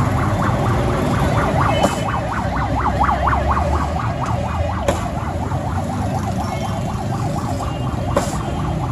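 Street traffic rumbling, with a rapid siren-style warble rising and falling several times a second, loudest about three seconds in and fading out after about six seconds. A few sharp clinks, like a steel scoop knocking against the pots.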